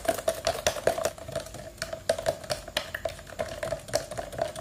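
A long spoon stirring chocolate powder and hot water in a plastic cup, clicking rapidly and irregularly against the cup's sides.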